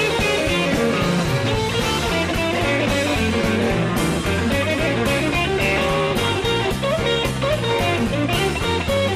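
Blues band playing an instrumental passage without singing, led by electric guitar, with a steady beat.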